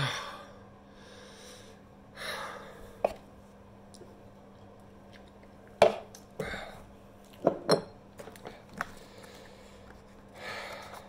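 A man breathing out heavily three times, short of breath from chilli heat, with several sharp knocks and taps between the breaths as a cardboard sauce box and other items are handled on a table.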